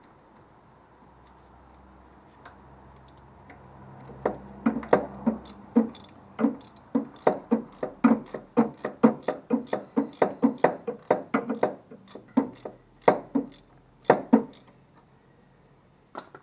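A run of about thirty sharp, ringing strikes at a steady three or so a second, starting about four seconds in and stopping a couple of seconds before the end.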